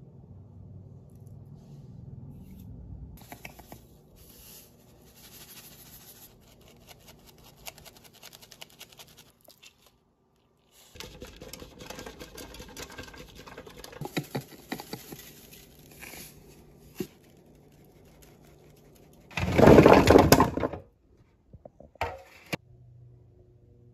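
Kitchen handling sounds: a spoon scraping and stirring through dry uncooked rice in a bowl, then rice tipped and spread into a stainless-steel roasting tray, with scattered scratchy clicks. About twenty seconds in comes a loud rush of noise lasting about a second, followed by a few light clicks.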